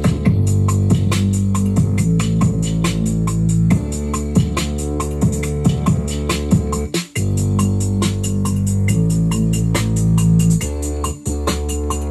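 Electronic beat from a Native Instruments Maschine MK3: fast, even ticks over held bass and chord tones. The beat cuts out for an instant about seven seconds in and again near the end.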